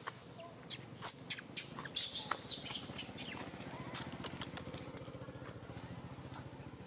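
A motor running steadily in the background, with a string of sharp clicks and a brief hiss in the first half.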